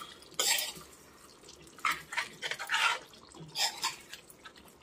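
Metal spoon stirring watery chicken curry in a kadai: about four short wet scraping strokes, roughly a second apart, stirred so the chicken doesn't stick to the bottom as it cooks in its own juices.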